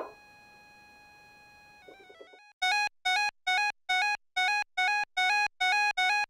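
Korg Minilogue Bass analog synthesizer: a quiet held note, then from about two and a half seconds in a louder short note repeated about twice a second, each one cut off abruptly. The amp envelope's decay is being set.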